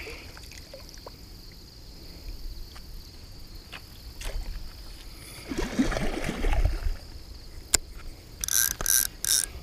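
Water sloshing as a landing net with a hooked carp is moved through shallow lake water, with a splash of the fish thrashing a little past halfway. Near the end comes a sharp click and then a quick run of rasping clicks.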